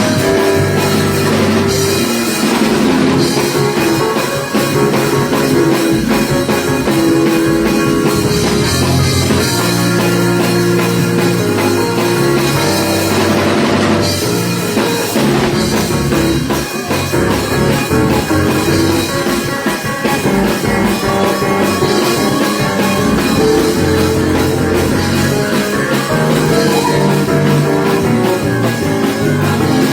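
Loud live band music with drum kit and electric guitar, a steady rock beat throughout.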